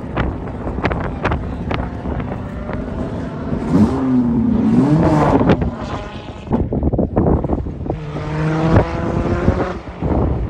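Hillclimb race car's engine heard from the hillside, revving up and down through a bend about four seconds in, then pulling hard with its pitch climbing before cutting off near the end. Wind buffets the microphone throughout with sharp pops.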